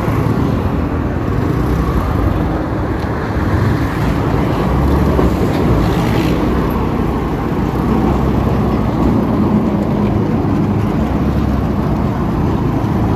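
Motorcycle running while being ridden, with a steady low rumble of engine, wind and road noise on the microphone.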